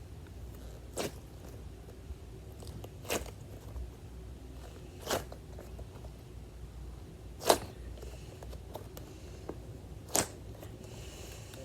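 Cheese-shaped squishy toy squeezed again and again, each squeeze giving a short crunchy crackle: five in all, about two to two and a half seconds apart, the fourth the loudest.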